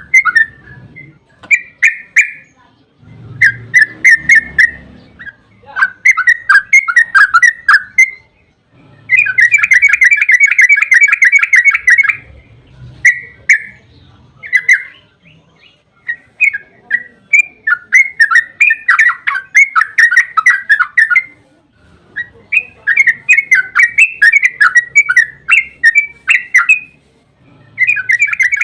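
Sooty-headed bulbul (trucukan) singing: short bursts of quick, bubbling whistled notes alternating with long fast runs of notes (ropel), the longest starting about nine seconds in and again through the second half.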